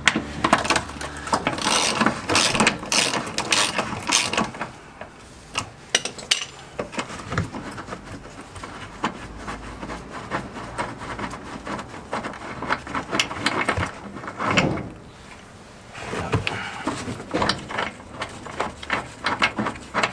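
Hand socket ratchet clicking in quick runs as a suspension bolt is wound out, in about three bursts with quieter, sparser clicks between them.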